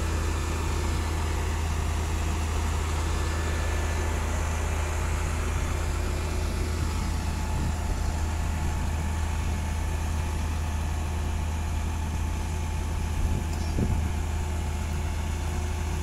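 Diesel engine of a Junjin truck-mounted concrete pump running steadily, a low, even drone.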